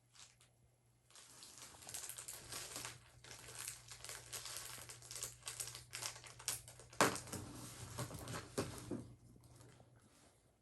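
Dense crinkling and small clicks of hands handling slime add-ins and their plastic packaging, with a louder crackle about seven seconds in.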